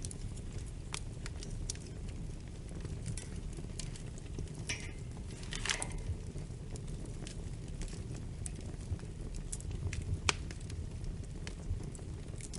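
Wood fire crackling in a fireplace: a steady low rumble of flames with scattered pops and snaps. A cluster of louder crackles comes about five to six seconds in, and a sharp pop about ten seconds in.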